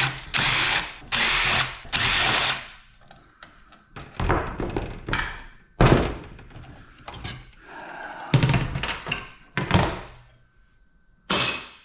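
Power drill run in four short bursts, each spinning up with a rising whine, backing out the screws that hold a computer heat sink. After that come several separate knocks and clunks as the metal parts are handled.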